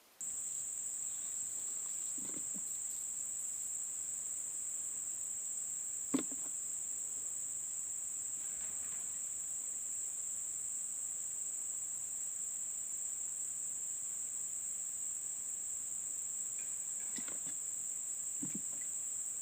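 Steady, high-pitched insect chorus, crickets, running without a break, with a few faint knocks and rustles and one sharp click about six seconds in.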